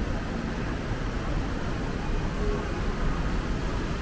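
Steady background din of a shopping mall, heaviest in the low range, with no distinct events standing out.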